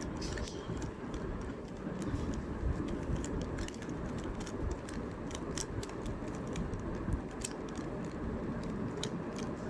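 Rubik's Cube being scrambled: quick, irregular plastic clicks as its layers are twisted, over a steady low background rumble.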